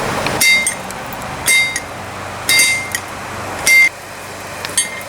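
Hand hammer blows on hot steel over an anvil: four ringing strikes about a second apart and a lighter one near the end, as the sledge head is drawn out by hand forging. Each blow leaves the anvil ringing with a clear high tone over a steady background noise.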